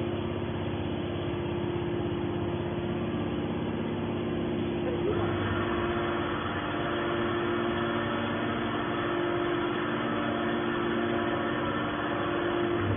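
Hydraulic baler's motor and pump running with a steady hum; about five seconds in, a higher-pitched whine joins it.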